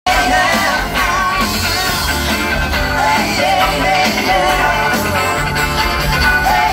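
Live band music with a singer's voice over bass and drums, heard loud through the venue's sound system from among the crowd.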